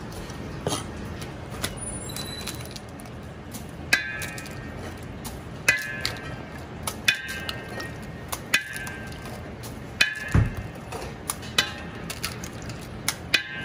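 Eggs cracked one after another on the rim of a stainless steel mixing bowl, each tap making the bowl ring briefly, about one every second and a half from about four seconds in. A few lighter knocks come before.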